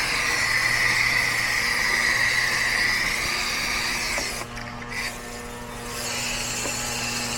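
A spray hissing steadily onto an air-conditioner condenser coil being cleaned because of high head pressure; it stops for about a second and a half partway through, then starts again. Under it runs a steady electrical hum.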